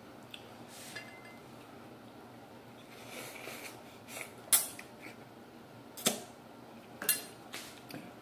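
King crab leg shell being pried at with a metal utensil: a few sharp cracks and clicks of shell and metal, the loudest about four and a half seconds in.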